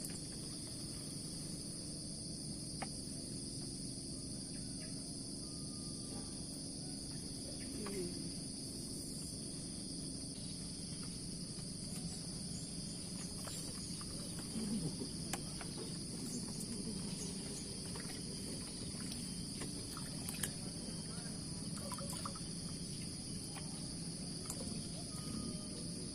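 Steady chorus of crickets or other insects, drawn out as two constant high-pitched bands, over a low steady hum, with scattered faint clicks and a brief low murmur of voices about halfway through.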